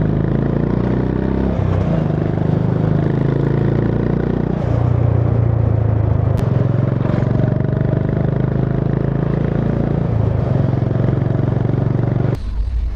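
Honda CB350 H'ness motorcycle's air-cooled single-cylinder engine running under way, its pitch stepping between a few steady speeds. Near the end the engine sound cuts off abruptly to a quieter, rougher sound.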